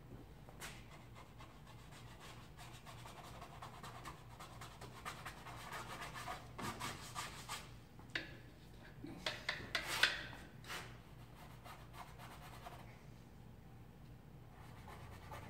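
Paintbrush strokes rubbing and scratching across a canvas: a run of short scrapes and taps that grows busier in the middle, the loudest a sharp tap about ten seconds in.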